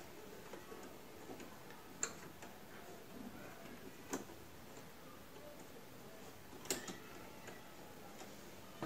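Three light, sharp metal clicks a couple of seconds apart as a steel throat plate and its small screw are handled and set in place on the plastic bed of a Singer Promise 1408 sewing machine.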